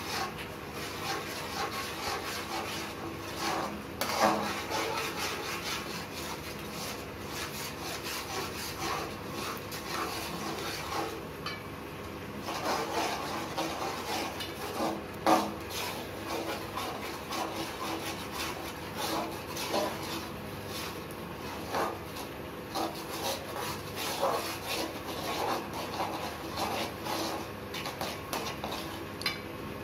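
A metal spatula scrapes and stirs around the inside of an aluminium pan in irregular strokes, with a couple of sharper knocks about four and fifteen seconds in, as a scramble of eggs in masala is stirred until it sets.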